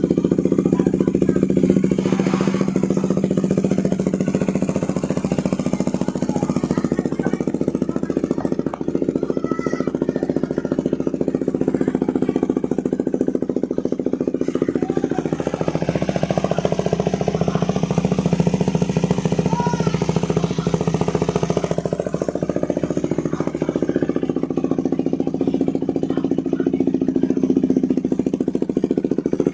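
KTM 390 Duke's single-cylinder engine idling steadily through a Remus S-flow full exhaust system.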